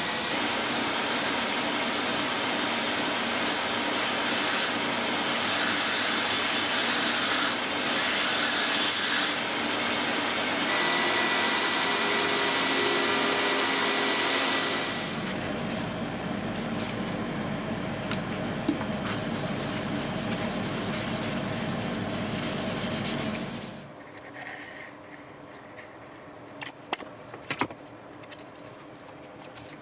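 Belt grinder running while a steel knife blade is ground against the belt: a steady hissing rasp that gets louder about 11 seconds in. It drops to a quieter steady sound at about 15 seconds. From about 24 seconds there is only faint scraping with a few small clicks.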